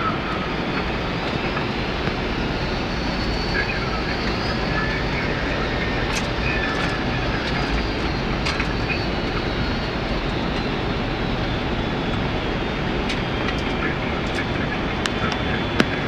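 Steady cockpit noise of a Boeing 767 on final approach, an even rush at a constant level, with a few light clicks and one sharper click near the end.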